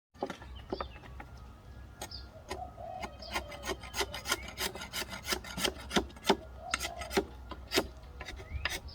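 Scraping on an old wooden beehive as it is cleaned: a quick series of short, sharp scraping strokes, several a second, busiest in the middle.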